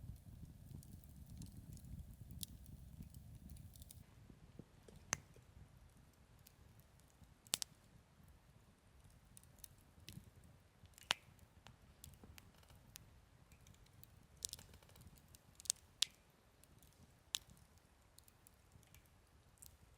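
Wood campfire crackling, with sharp, irregular pops of different strength, about half a dozen of them loud, over a faint low rumble that eases a few seconds in.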